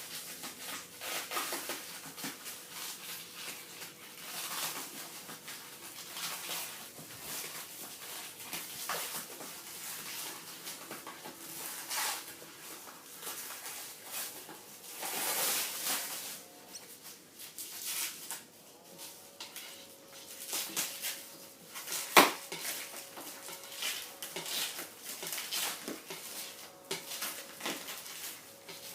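Packaging being handled and unwrapped: irregular rustling and crackling of wrapping material, with one sharp knock about three-quarters of the way through.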